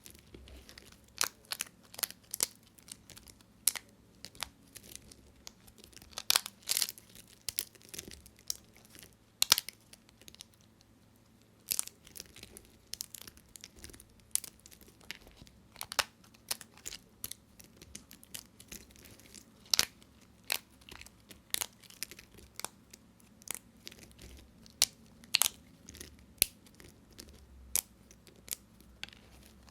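Dry bar soap being cut, giving an irregular run of crisp crunches and sharp clicks as the blade cracks through it, with a short lull a little past a third of the way in.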